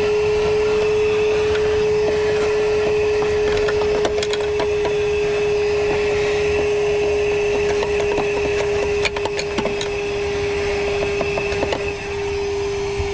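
Wet/dry vacuum running at a steady pitch, sucking up standing condensate water, with scattered crackles and clicks of water and debris being drawn up the hose.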